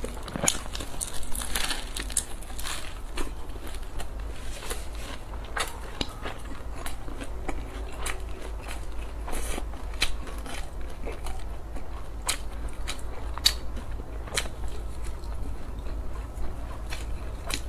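Close-miked eating sounds: biting and chewing a folded scallion flatbread wrap, with frequent sharp crackly clicks from the mouth, irregularly spaced.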